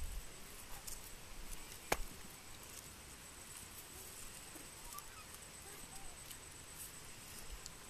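Faint outdoor background with a single sharp click about two seconds in and a few fainter ticks.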